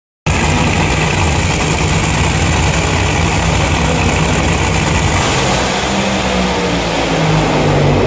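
Two Funny Cars' supercharged V8 engines running loud and steady at the drag strip's starting line.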